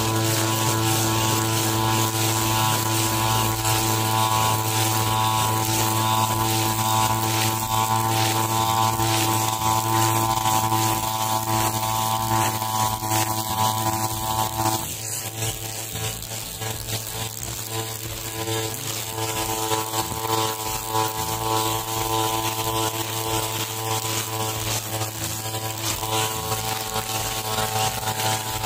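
Backpack brush cutter's small petrol engine running at a steady high speed while cutting long grass. About halfway through the sound drops and thins for a few seconds, then the engine runs steady again.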